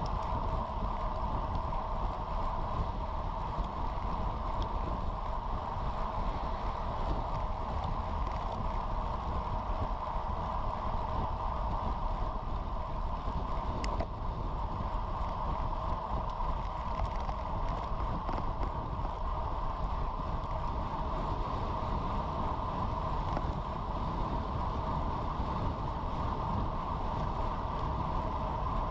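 Steady wind rush and road noise on a bicycle-mounted action camera riding at about 30 mph, with a steady hum from the tyres on the asphalt. One sharp click about fourteen seconds in.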